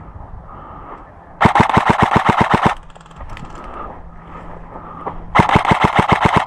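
Airsoft gun firing two short full-auto bursts of rapid, evenly spaced shots, about ten a second. The first burst is about a second and a half in, the second near the end.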